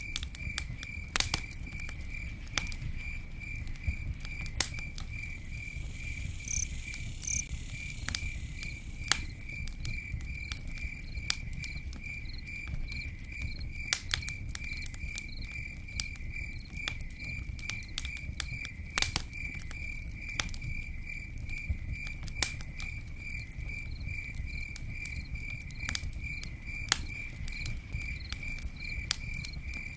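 Campfire crackling, with sharp wood pops at irregular intervals over a low, steady rumble of flame, while a cricket chirps in a regular, evenly spaced pulse.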